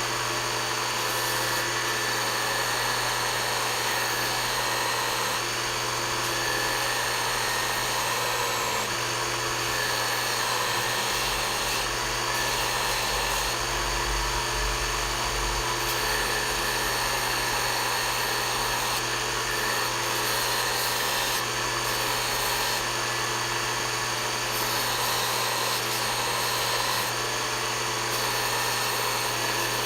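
An electric power tool running steadily with a constant motor hum, its tone shifting every second or two, with a low rumble added for a few seconds near the middle.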